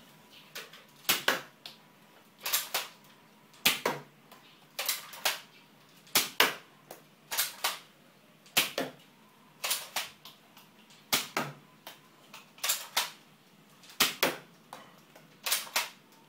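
Toy Nerf dart blaster firing again and again: about a dozen sharp double clacks, one roughly every second and a half.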